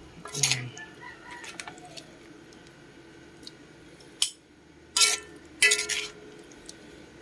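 Metal spatula knocking and scraping against a metal wok while stir-frying greens: a few sharp clanks that ring briefly, about half a second in and again near four, five and six seconds.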